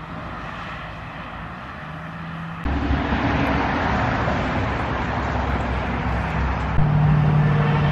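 Road traffic: vehicle engine and tyre noise that swells over the first few seconds, then jumps louder at once and carries on as a steady drone, growing stronger again near the end.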